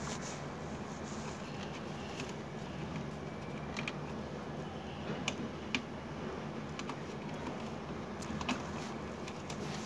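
A few light clicks of wire connectors and terminals being handled, over a steady low hum.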